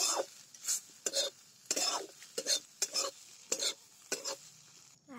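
Flat metal spatula scraping and stirring fried egg with masala around a metal kadhai in quick strokes, a bit under two a second, stopping near the end.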